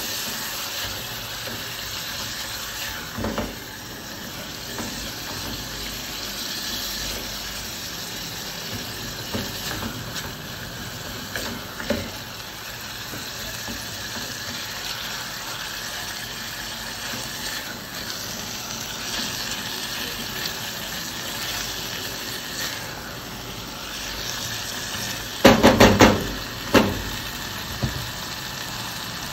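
Ground beef and sliced onions sizzling as they fry in fat in a stainless-steel pot, stirred now and then with a silicone spatula. A quick run of sharp knocks near the end.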